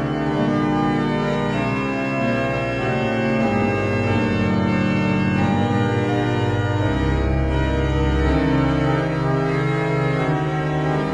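Organ music: sustained chords held for several seconds each, changing a few times, with a deep bass note swelling near the middle.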